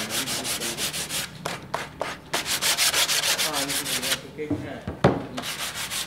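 Sandpaper rubbed by hand along the edge of a wood panel, smoothing freshly trimmed edge banding: quick back-and-forth scratching strokes, about ten a second, in three bursts with short pauses between. A single sharp knock about five seconds in.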